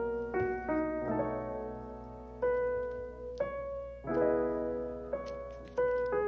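Soft background piano music, with a new note or chord struck about once a second over held tones.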